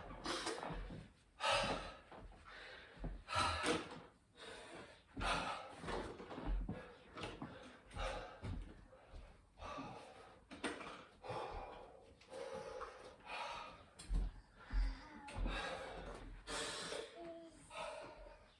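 A man breathing hard and fast through mouth and nose, gasping about once a second as he recovers from a set of 25 burpees.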